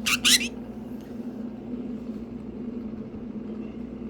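Pet conure giving two quick shrill squawks right at the start, over a steady low hum.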